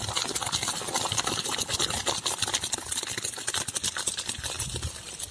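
Boiled rice and its starchy cooking water being poured from a large pot into a perforated metal colander. The water and rice fall through with a steady, dense splashing: the cooked rice is being drained.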